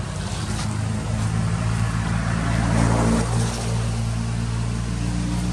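A motor engine running steadily at a constant pitch, with a brief swell of louder noise about three seconds in.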